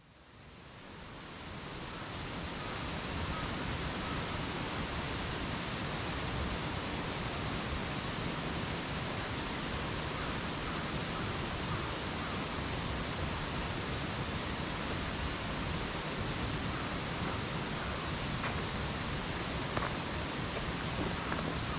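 Steady rushing outdoor forest ambience, fading in over the first two seconds, with a few faint footsteps on the dirt ground near the end.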